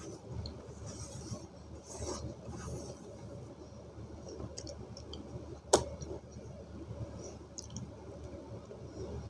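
Wet Fuller's earth (multani mitti) paste being scooped by fingers from a steel bowl and eaten, making soft, irregular squishy mouth and finger noises. There is one sharp click a little under six seconds in.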